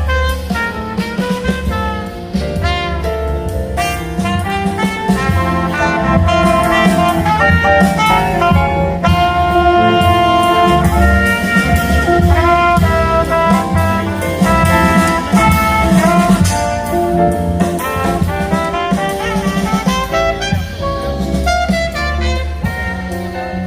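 A jazzy melody played on a horn in long held notes, over a drum kit and bass accompaniment.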